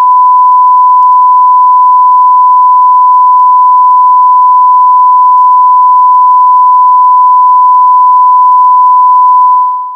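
A single loud, steady electronic sine-wave tone, pitched high, breaks in abruptly and holds for about ten seconds before fading out just at the end. It works as the emergency-broadcast attention tone interrupting the programme before the alert message.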